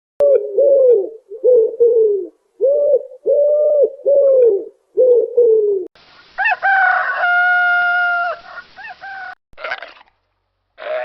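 Domestic chickens: a run of about eight short, arching calls, then a rooster crowing once about six seconds in, a long call held level before it drops off, followed by a few short calls.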